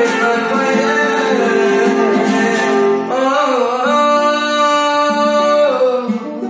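A male voice singing with a clarinet and a nylon-string classical guitar. About three seconds in the melody wavers through a quick run, followed by long held notes. The music gets quieter near the end.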